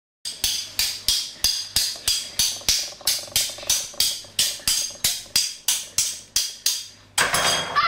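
A steady run of sharp, ringing knocks, about three a second. About seven seconds in, a loud, noisy burst cuts across them.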